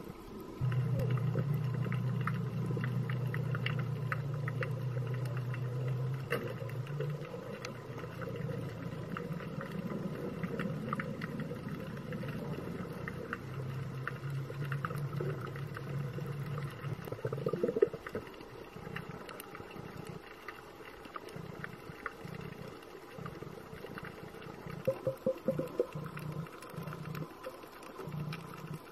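Underwater sound: a low steady drone that is strongest over the first several seconds and again a little past the middle, then breaks up into uneven low pulses. Scattered sharp clicks and crackles run throughout.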